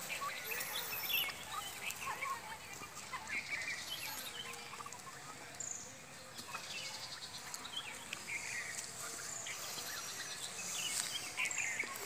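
A flock of domestic turkeys making scattered short, high calls and peeps.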